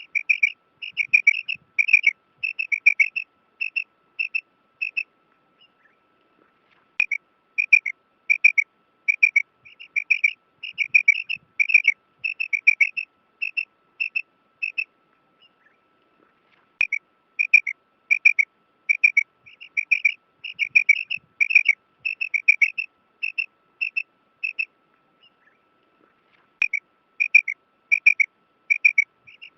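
Female quail calling: short, high call notes repeated two or three a second, in long bouts broken by brief pauses about every ten seconds.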